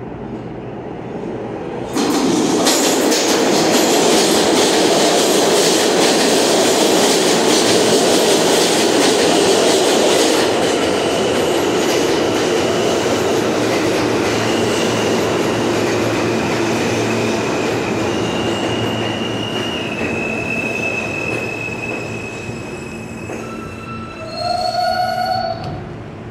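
R160 subway train pulling into the station: a loud rush and rumble of the cars arriving, starting suddenly about two seconds in and slowly fading as the train brakes to a stop, with a high whine that shifts pitch in steps while braking. Near the end a short electronic chime sounds as the doors open.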